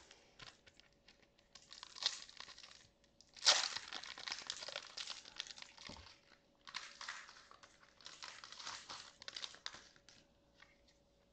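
Small Pokémon Trick or Trade booster pack wrappers crinkling and tearing as they are opened by hand, in several bursts with short pauses between them.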